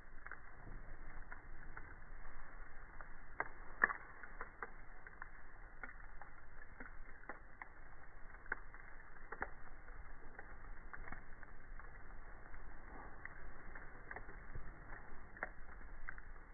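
Wood fire crackling: irregular sharp snaps and pops over a faint steady hiss, with one louder pop about four seconds in.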